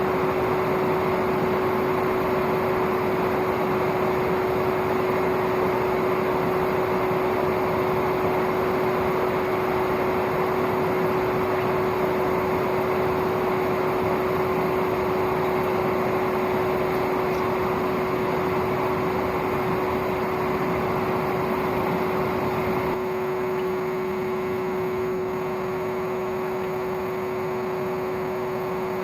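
Old vacuum cleaner motor used as the forge's air blower, running steadily with a constant whine over a rush of air. About 23 seconds in it becomes slightly quieter and loses some of its low rumble.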